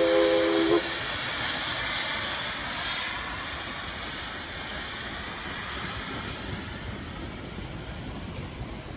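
East Broad Top #16 steam locomotive's whistle, a chord of several tones, cutting off sharply about a second in, followed by the hiss of steam and the rumble of the passing freight train, which slowly fades away.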